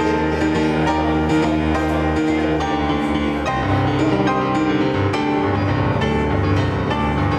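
Instrumental background music with held chords that change every second or so.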